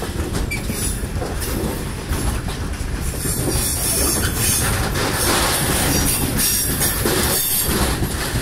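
Open freight wagons of a freight train rolling slowly past at close range: a steady rumble of steel wheels on the rails with a high hiss, and a few sharp clanks over the rail joints near the end.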